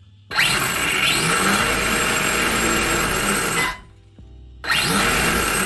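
Yikong 4073 TB7 1/7 RC desert truck's electric motor and drivetrain spinning up on throttle with a rising whine. One run of about three seconds, then a second short burst.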